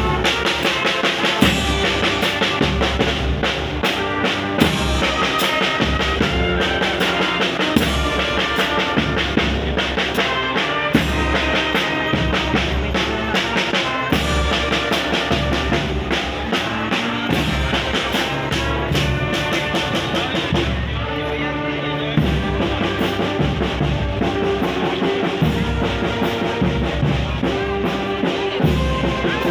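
Marching brass band playing, with saxophone and tuba-type horns over a steadily beaten bass drum and cymbal.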